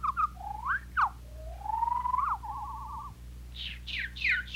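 Whistled cartoon bird calls: short chirps, a rising glide and a falling sweep, then a long rising whistle that breaks into a quick trill. A run of quick falling chirps follows near the end.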